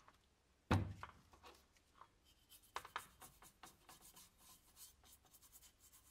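A single knock a little under a second in, then a stiff brush scrubbing a rusty metal license plate in quick, short strokes.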